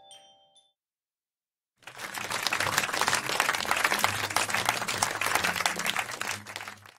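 The last notes of classroom xylophones and glockenspiels ring out and fade. After a second or so of silence, an audience applauds, and the applause cuts off abruptly near the end.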